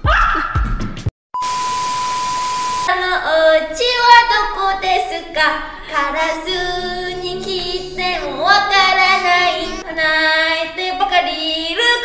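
A short steady beep over hiss. Then a young girl sings solo into a microphone from about three seconds in, with long held and bending notes.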